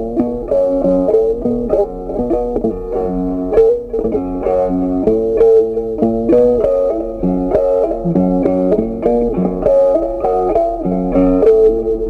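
Background music: a plucked guitar playing a steady melody of short notes over a lower moving line.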